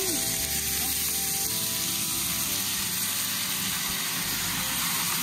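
Hot lard sizzling in a wok over a gas burner, flaring up as freshly picked rapeseed greens are tipped in to stir-fry: a steady sizzle.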